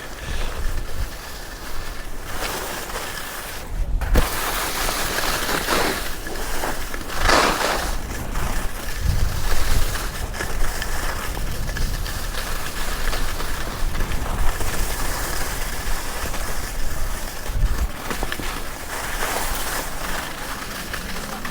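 Skis sliding and scraping over snow on a downhill run, with wind rushing over the microphone. The sound is a steady hiss with a low rumble that swells and eases as the skier turns.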